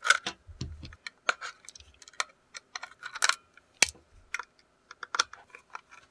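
Irregular sharp plastic clicks and taps from the opened plastic housing and circuit board of a pocket fetal Doppler being handled and pried apart.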